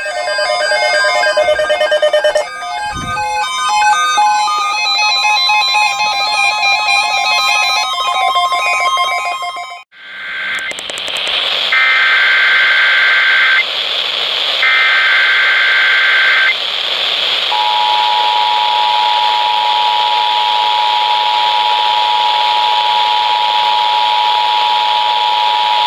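Music for about ten seconds, then an abrupt cut to an Emergency Alert System broadcast test: three bursts of SAME header data tones, followed about halfway through by the steady two-tone EAS attention signal (853 and 960 Hz) over a constant hiss.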